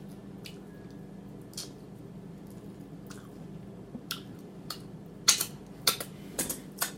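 Wet chewing and lip-smacking of someone eating smothered chicken with gravy close to the microphone: scattered sharp mouth clicks, coming more often in the last two seconds, over a faint steady hum.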